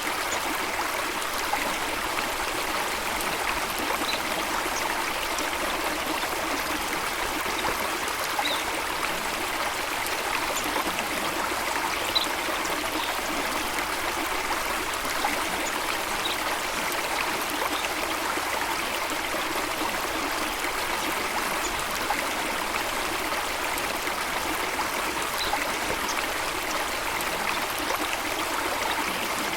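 Flowing water, a steady rushing and trickling, with a few faint short high bird chirps now and then.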